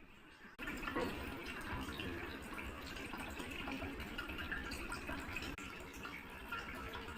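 Running water, starting abruptly about half a second in and then flowing steadily.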